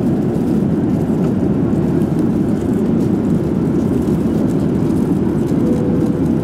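Steady in-flight cabin noise of a Boeing airliner: an even, unbroken rumble of jet engines and airflow, strongest in the low range.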